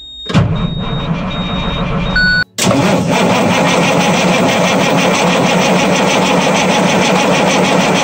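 Starter cranking a Cummins N14 Celect Plus diesel steadily with an even beat, without the engine firing: a crank-no-start condition. The cranking breaks off briefly about two and a half seconds in, then continues.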